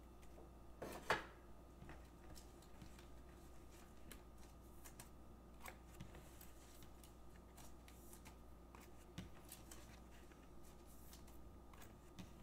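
Faint handling of trading cards on a tabletop: light taps and slides as cards are picked up, with one sharper click about a second in.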